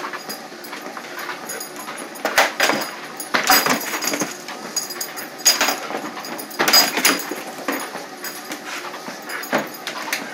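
A treadmill running with a steady hiss, broken by irregular knocks and clatters, while a German Shepherd makes small sounds close to the microphone.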